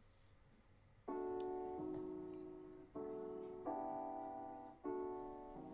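Background music: sustained keyboard chords come in about a second in and change every second or so.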